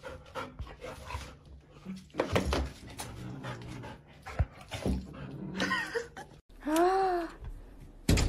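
A puppy and a cat squabbling: scattered short dog yelps and scuffling knocks, with brief high cries near the middle. Then one drawn-out rising-and-falling cry, and a thud near the end.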